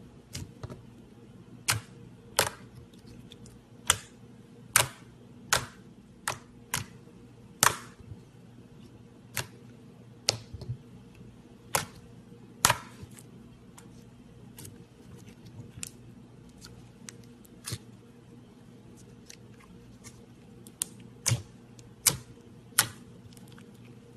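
Slime being poked and pressed, giving sharp, irregular clicks and pops over a steady low hum.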